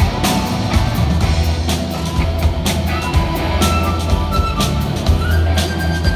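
Live rock band playing flute, electric guitar, bass guitar, keyboard and drums, recorded on a mobile phone.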